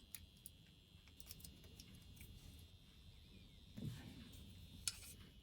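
Near silence: faint room tone with a few scattered faint clicks, a soft knock about four seconds in and a sharper click near the end.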